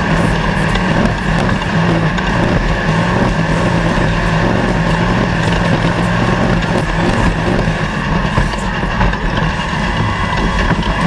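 Off-road race vehicle's engine running steadily at an even pitch, over a constant rush of wind and terrain noise.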